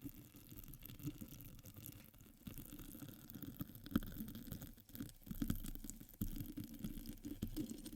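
Water dripping and splashing in many small irregular drops.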